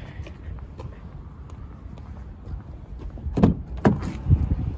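Car door being handled: two sharp latch clicks about half a second apart, then a low thump near the end, over a low rumble.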